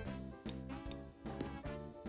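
Instrumental background music made of short, regularly changing notes.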